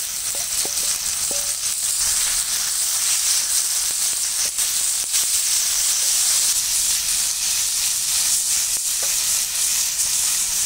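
Raw chicken pieces, just added to a hot iron tawa with onion-tomato masala, sizzling steadily as they fry, the hiss building over the first couple of seconds. A wooden spatula stirs them, with a few faint taps against the pan.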